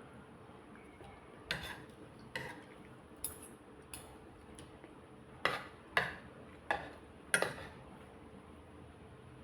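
Eating utensils clinking against a plate or bowl of cooked vegetables: about eight short clinks, four of them in quick succession in the second half.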